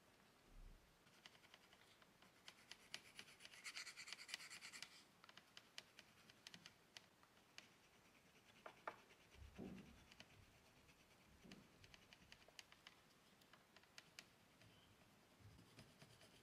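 Oil pastel scratching across paper in quick, faint strokes, with a dense run of rapid strokes a few seconds in, then scattered small scrapes and clicks.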